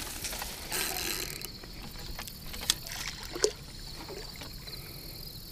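Water sloshing and splashing as a hooked carp is played in close to the bank, with a few sharp clicks about three seconds in.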